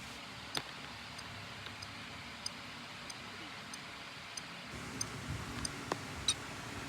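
Scattered sharp clicks and faint ticks over a steady hiss.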